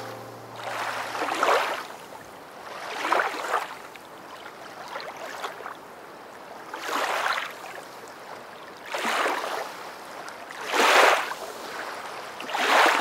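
Rushing water that swells up and falls away about every two seconds, like waves washing in.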